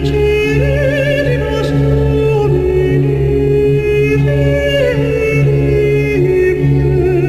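Music: a slow song with a voice holding long notes with vibrato over steady accompaniment.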